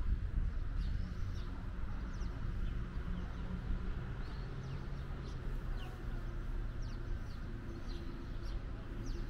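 Small birds chirping in scattered short, high, falling notes over a steady low rumble.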